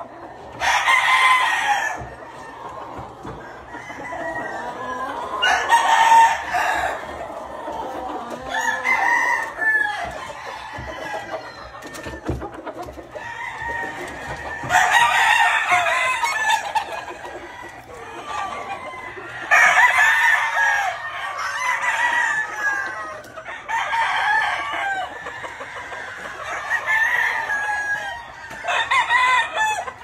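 Several gamefowl roosters crowing one after another, a loud crow every few seconds, with softer calls in between.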